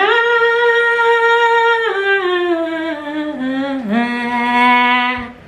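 A woman singing one long, drawn-out note that starts high, slides down in pitch in steps and settles on a lower held note before cutting off near the end.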